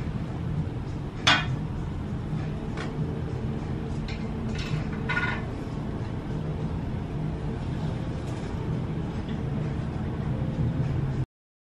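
A few light clinks of a glass soda bottle against a drinking glass, the sharpest about a second in, over a steady low background hum. The sound cuts off suddenly just before the end.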